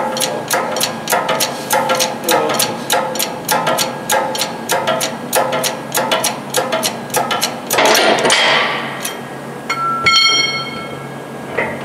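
Hand-pumped hydraulic shop press being worked to press a gear and bearing off a Honda K-series transmission shaft, its pump clicking about three times a second. Near the eighth second there is a loud crack as the part lets go, and about two seconds later a piece of metal rings briefly.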